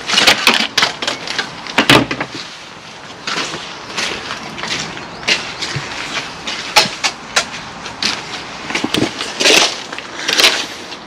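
Irregular knocks, clanks and scrapes of site tools being handled, with a spade digging and scraping into wet ground near the end.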